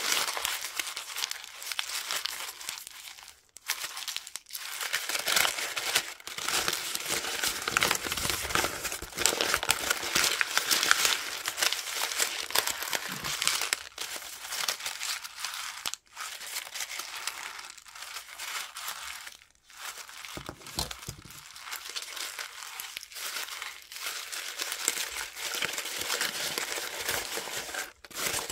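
Brown kraft paper from a paper bag being crumpled by hand into a ball and then pulled open again: continuous crackling and crinkling, with a few brief pauses.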